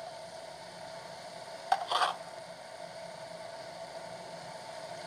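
Low, steady sizzle of chili seed oil heating in a wok under dried hairtail strips, with a short clatter about two seconds in.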